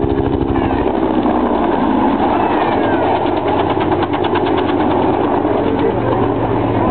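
Bell AH-1 Cobra helicopter in flight, its two-bladed main rotor making a steady, rhythmic chop over the engine's continuous noise; the beat is clearest around the middle.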